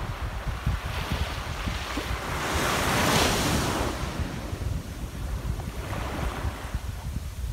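Ocean surf washing in, with wind rumbling on the microphone; the wash swells to its loudest about three seconds in, and a smaller swell follows near six seconds.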